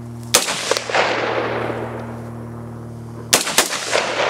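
Rifle shots from an AR-style semi-automatic rifle. One sharp shot comes about a third of a second in, followed by a long echo rolling off the hillside, then two quick shots close together near the end.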